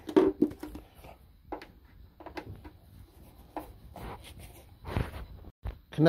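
A hand driver working a sheet-metal screw on a water heater's steel jacket, loosening it to take a ground wire: scattered light clicks and taps of tool and metal, with a louder knock about five seconds in.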